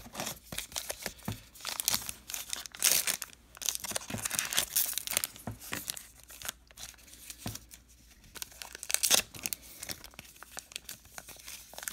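Foil wrapper of a 2019 Topps Allen & Ginter baseball card pack being torn and crinkled open by hand, in irregular crackling bursts. The pack is hard to open.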